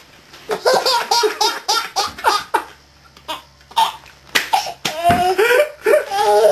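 Baby laughing in quick repeated bursts. The laughter breaks off briefly about halfway, then comes back with longer, drawn-out laughs near the end.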